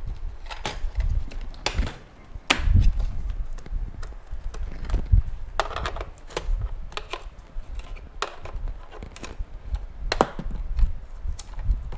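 Irregular clicks, taps and knocks of a screwdriver prying and scraping at a hard plastic device housing, with dull thumps as the housing is handled on the bench.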